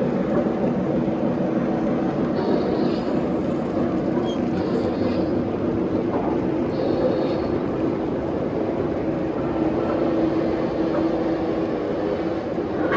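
Three-rail model trains running on the layout: a steady rumble and hum of motors and wheels on the track, with a few brief higher-pitched squeals or tones about 3, 5 and 7 seconds in.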